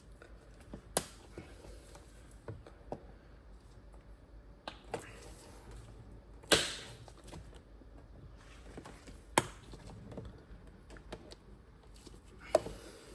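Hand work on car parts: four sharp clicks and knocks, the loudest about six and a half seconds in with a short ring after it, and quieter tapping in between.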